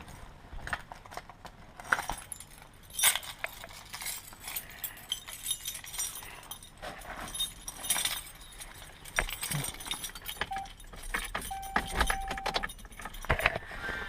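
Car keys jangling and clinking as they are handled, with scattered small knocks and clicks. A short steady electronic tone sounds twice near the end.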